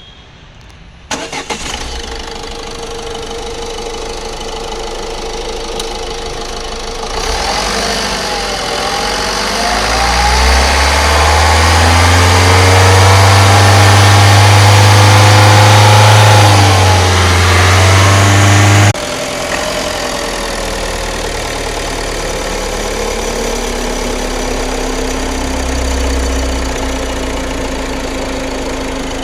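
Ford EcoSport engine starting about a second in and running. It grows louder with the revs rising and wavering through the middle, then drops suddenly back to a steady idle, with a whine that rises and holds near the end.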